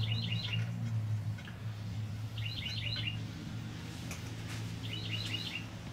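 Clusters of quick, high bird-like chirps repeating about every two and a half seconds over a steady low hum, with a few faint clicks about four seconds in.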